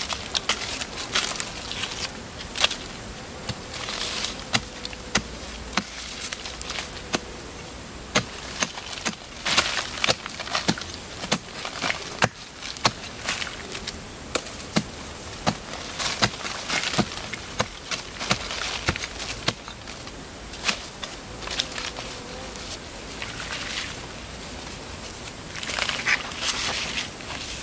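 A wooden digging stick jabbing and levering into dry, sandy soil, with many sharp knocks and bursts of scraping, and hands scraping loose soil near the end. A faint insect buzz comes and goes.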